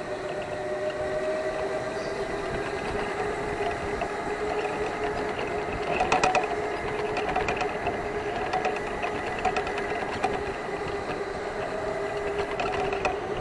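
Electric go-kart motor whining steadily at racing speed, its pitch drifting slightly through the corners. A burst of rattling knocks comes about six seconds in, with lighter clicks after.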